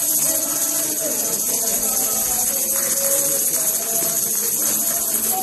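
A tambourine jingling steadily without a break, under voices of a worshipping congregation.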